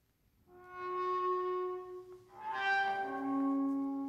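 Experimental live music for double bass and laptop electronics: a held tone with bright overtones swells in about half a second in, and a second, lower tone enters about two and a half seconds in and sustains.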